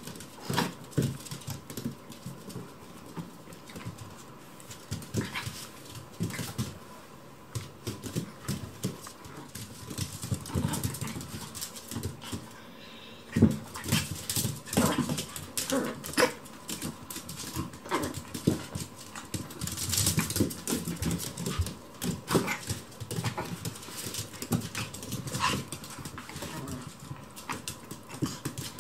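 A Chihuahua and a Maltese play-fighting: scattered small-dog growls and whimpers mixed with scuffling and paws hitting a wooden floor, coming irregularly in short snatches.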